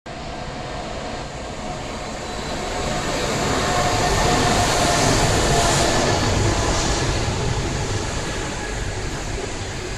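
Freight train passing at speed with a heavy, steady rumble. It grows louder from about three seconds in, is loudest around the middle, then eases a little as the wagons keep rolling by.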